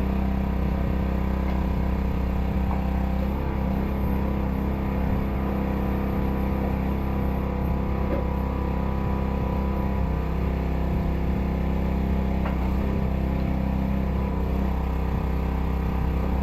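An engine running steadily at a constant speed, with an even low hum and no revving.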